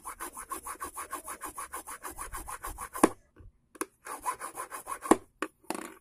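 Rapid back-and-forth filing of an eyeglass temple arm to thin it so it fits the hinge slot, about eight scraping strokes a second. The filing stops with a sharp click about three seconds in, starts again, and a second click and a few short strokes come near the end.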